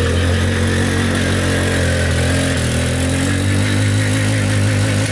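Alpha RX 11 motorcycle's small single-cylinder four-stroke engine held at high revs for a burnout, rear wheel spinning. The engine note stays steady, rising slightly about two seconds in.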